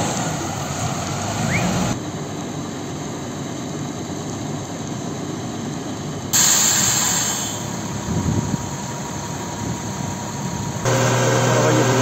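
Fire truck engines running with water jets rushing from their roof nozzles, a steady noisy rush that changes abruptly between short shots; near the end a steady engine hum comes in.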